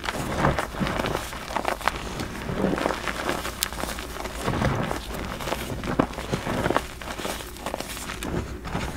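Hands squeezing and crumbling pink crushed gym chalk, a run of soft, irregular crunches and crackles as powder and small chunks break and shift between the fingers.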